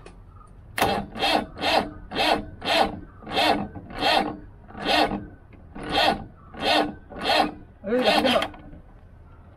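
Rasping strokes of a hand tool worked back and forth on metal, about a dozen in a row at a steady hand pace with short pauses between.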